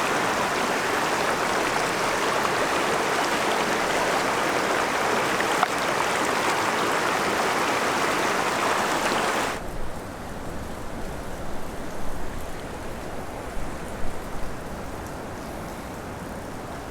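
Rushing water of a canyon creek's rapids, a steady loud hiss. About ten seconds in it cuts abruptly to a quieter, duller flow with a few soft knocks.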